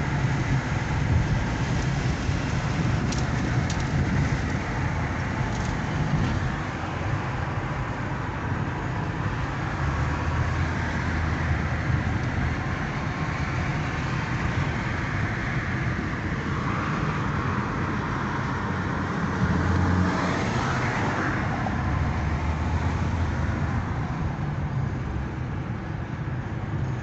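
Steady road and engine noise inside a moving car, swelling briefly about twenty seconds in.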